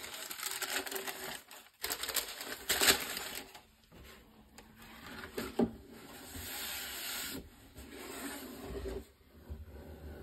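Thin tissue paper crinkling and rustling as it is folded back inside a cardboard shoebox, with a few sharper crackles, then the cardboard shoebox being handled.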